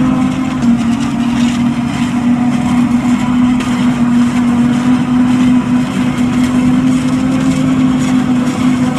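John Deere 8400i self-propelled forage harvester chopping maize, its engine and cutterhead running under load together with the tractor's engine alongside: a loud, steady drone with a strong low hum.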